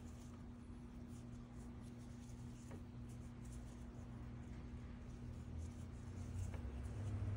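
Faint rustling and scratching of paracord strands being laid over one another and pulled snug by hand in a four-strand flat braid, over a steady low hum.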